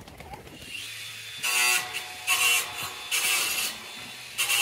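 A small motor running in four short, loud bursts of about half a second each, with a quieter steady hum between them.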